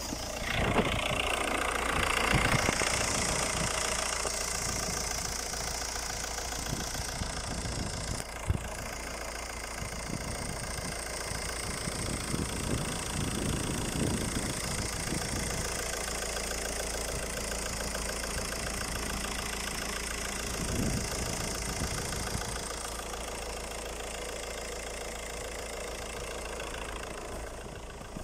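Skoda Octavia 2.0 TDI (BMM) four-cylinder diesel engine idling steadily, louder for the first few seconds. A single short sharp click about eight seconds in.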